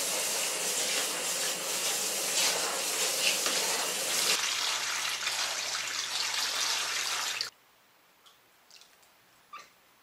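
Running water splashing over shiitake grow logs in a plastic tub, then water poured into the tub to fill it; the rushing stops suddenly about three-quarters of the way through, leaving a few faint light splashes as hands press the logs down in the water.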